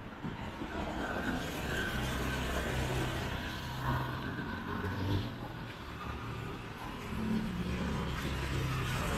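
Street traffic: motor vehicle engines running and passing close by, easing off briefly about two-thirds of the way through before another vehicle comes up.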